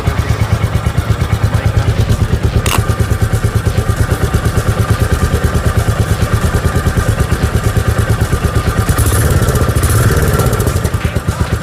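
Royal Enfield Meteor 350's single-cylinder engine idling through its stock exhaust, an even, steady beat of about eight pulses a second. It picks up briefly with a light blip of the throttle about nine seconds in, then settles back. A single sharp click sounds about three seconds in.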